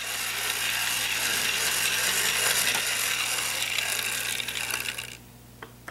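Small electric motor and gears of a cheap model steam locomotive whirring with a fine rattle as it runs along the track, cutting off about five seconds in.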